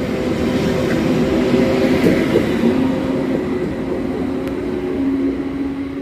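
A train running through the station, a steady rolling noise with several steady humming tones underneath and a couple of faint clicks.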